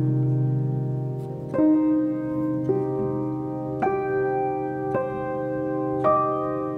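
Background music: slow piano melody, a new note struck roughly once a second and left to ring.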